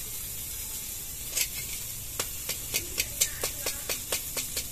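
Chicken inasal sizzling on a grill with a steady hiss. A single sharp click comes about a second and a half in, and from about two seconds in there is a fast, regular run of light ticks, about four a second.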